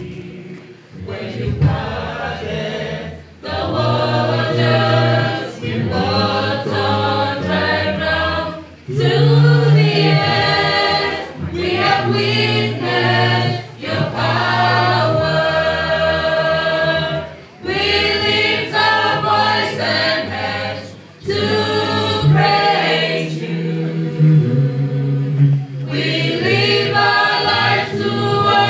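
Mixed male and female a cappella group singing a gospel song in close harmony, with no instruments and low bass voices underneath. It comes in sung phrases with brief breaks between them.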